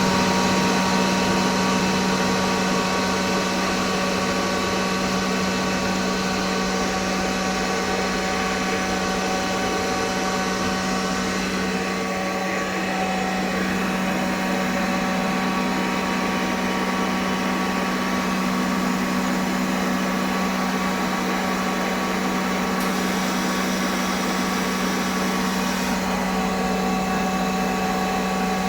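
Screw air compressor running steadily: a constant hum with a strong low tone and several fainter, higher steady tones over it.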